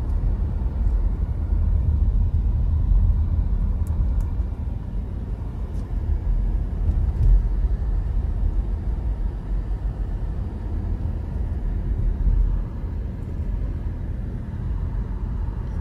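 A car driving, heard from inside the cabin: a steady low rumble that eases a little near the end.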